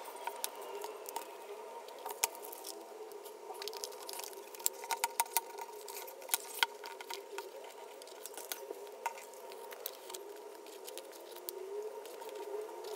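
Irregular small clicks and taps over a steady hum, with a quick cluster of sharper clicks about five seconds in.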